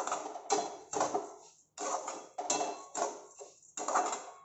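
A spatula scraping and stirring semolina and sugar around a steel kadhai, in repeated scraping strokes about two a second, as the semolina is roasted with the sugar.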